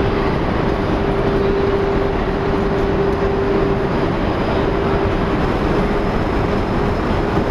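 Madrid Cercanías electric commuter train moving along the platform: a steady, loud rumble from the train with one steady whine held through it.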